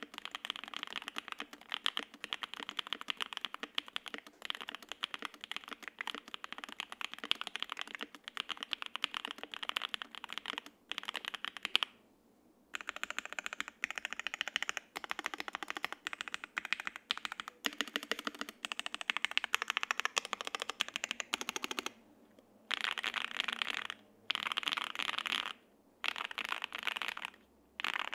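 Continuous typing on a Jelly Epoch SE 75% gasket-mount mechanical keyboard with lubed Alpaca V2 linear switches on an FR-4 plate and GMK double-shot ABS keycaps: rapid keystroke clacks broken by a few short pauses.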